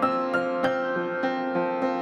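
Background piano music: gentle notes struck a few times a second over sustained chords.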